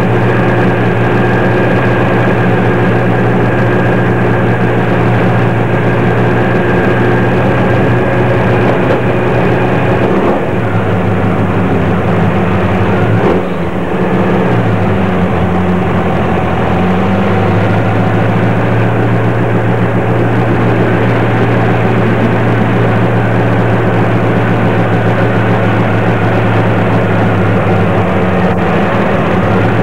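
Race truck's engine heard from inside the cab, running steadily at low speed. Its pitch dips and wavers briefly around the middle, then settles back to a steady note.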